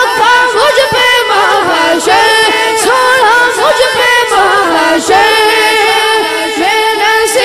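Naat sung without instruments: a high voice sings long, ornamented lines that glide and bend in pitch.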